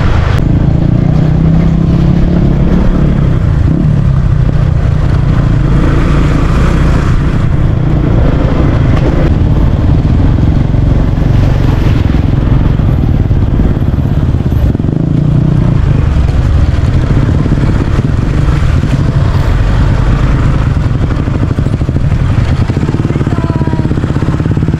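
Motorcycle engine running steadily while being ridden, a continuous low engine note with road noise over it.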